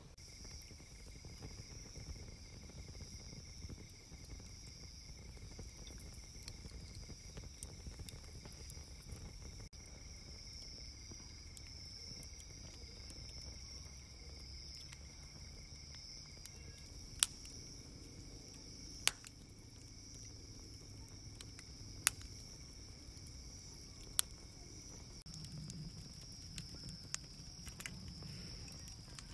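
Crickets chirping steadily in a high, even drone, with four sharp pops in the second half from a burning Swedish torch log crackling.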